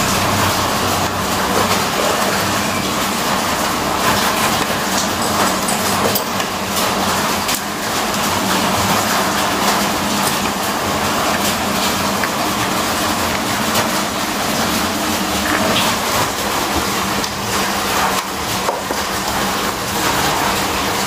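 GX-E-CS2 portable 12-volt high-pressure air compressor (HPA pump) running with a steady mechanical drone and hum, its motor and small cooling fans going without pause.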